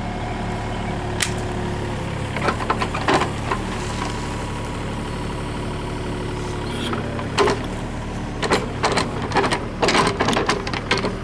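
Case CX36B mini excavator's diesel engine running steadily under work, with clanks and knocks from the machine as it backfills a hole. The knocks are scattered at first and come thick and fast in the last few seconds.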